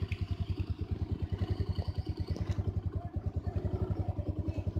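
Motor scooter engine running steadily at idle, an even putter of about ten pulses a second.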